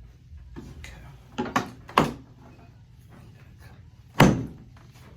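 Chiropractic adjustment thrusts on a treatment table: three quick thuds about a second and a half to two seconds in, then one loud thunk about four seconds in.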